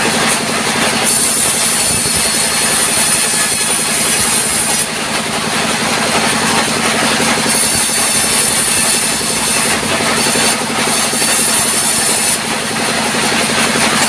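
Sawmill band saw running with a steady low hum while its blade cuts through timber, a high hissing rasp that comes in three stretches and breaks off twice in between, once about five seconds in and again near ten seconds.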